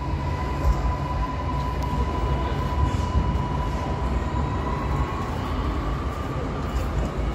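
Electric train, a Pesa Dart ED161 multiple unit, approaching in the distance: a steady low rumble with a thin steady whine that rises slightly about five seconds in.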